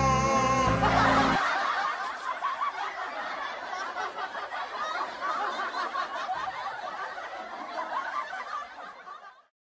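Several people snickering and chuckling together in one continuous run of laughter, which fades out near the end. A song with a steady beat cuts off about a second in.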